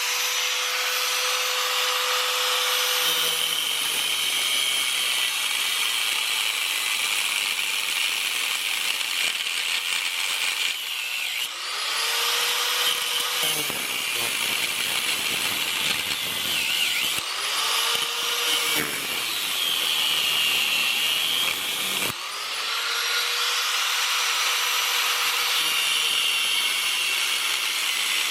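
Power saw cutting through rusted exhaust manifold studs, its motor running steadily with a harsh cutting noise. Around the middle the motor stops and spins back up a few times between cuts.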